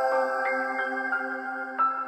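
Background music: sustained, chiming chords, with new chords coming in about half a second in and again near the end.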